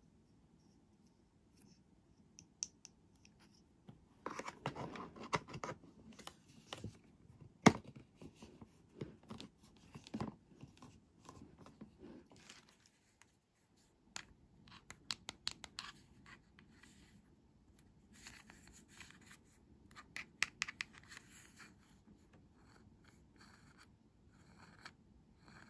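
Hands handling small plastic toy doctor-kit pieces against a plastic playset case: scattered light clicks, taps and scrapes, with one sharp click about eight seconds in and a brief pause a little past halfway.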